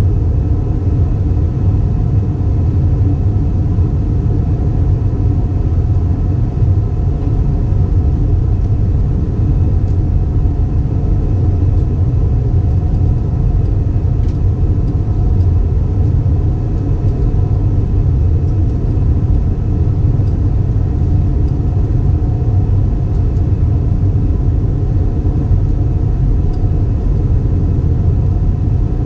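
Airbus A320 cabin noise: a steady, unchanging drone of jet engines and airflow heard inside the cabin, with a few faint steady tones above the low rumble.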